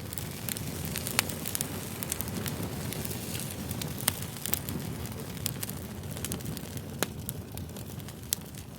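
Wood fire burning, with a steady low rumble of flames and frequent sharp, irregular crackles and pops.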